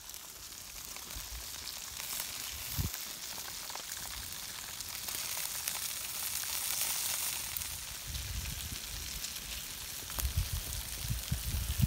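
Bacon sizzling and frying in a pan over a campfire: a steady hiss with fine crackles, and some low rumbling near the end.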